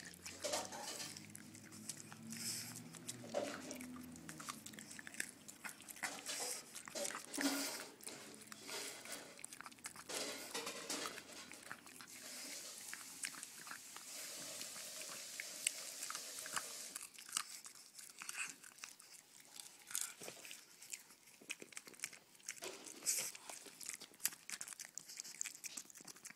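A pug biting and chewing on a hard candy stick held out to it: uneven crunching and gnawing clicks throughout.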